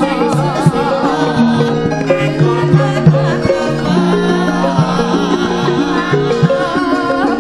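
Javanese gamelan ensemble playing an instrumental passage: struck metal notes over regular hand-drum strokes, after the sindhen's sung line ends right at the start.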